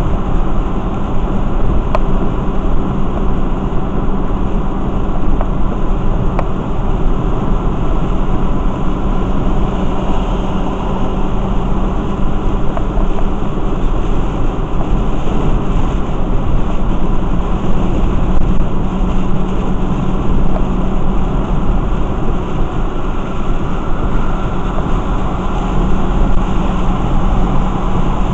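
Steady road noise inside a car's cabin on a rain-soaked freeway: tyres hissing on wet pavement over a constant low drone.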